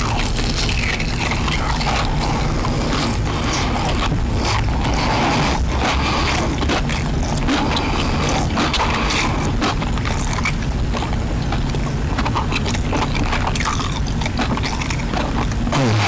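Close-up chewing of crispy breaded fried chicken: a bite, then many quick crunches and wet mouth sounds, over a steady low rumble.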